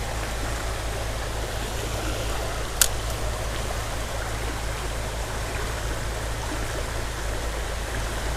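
Small creek running steadily, with one sharp click about three seconds in.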